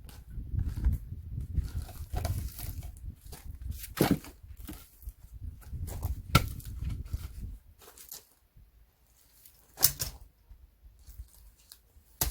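Firewood being split with an axe: three sharp cracking strikes about 4, 6½ and 10 seconds in, with smaller knocks and rustling of the wood between.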